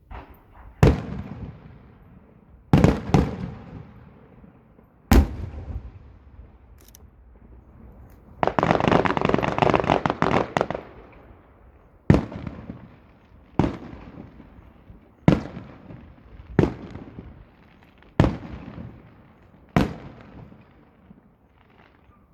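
Aerial firework shells bursting: about ten sharp bangs spaced one to three seconds apart, each dying away, with about two seconds of dense crackling near the middle.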